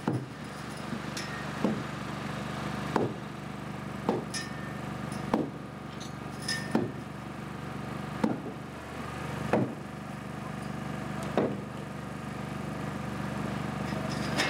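Sledgehammer blows on the wooden lock gate, about ten strikes roughly one every second and a half, knocking out a chunk of timber cut free by chainsaw. A steady machine drone runs underneath.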